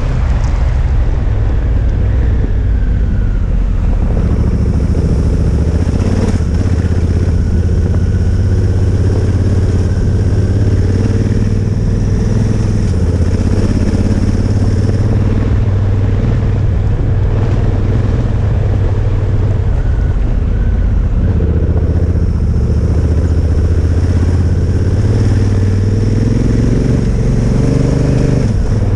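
Honda Africa Twin motorcycle engine running steadily under way, its note rising and falling a little with the throttle, along with the noise of riding a gravel road.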